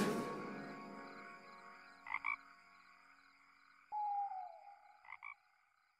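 The song stops and its last sound dies away. Then comes faint night ambience: a steady high chirring, a short double call about two seconds in and again near the end, and one falling call about four seconds in, from an animal.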